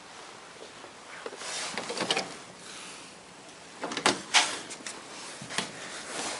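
Sliding elevator door running with a rushing sound, then two sharp clunks about four seconds in, followed by lighter clicks.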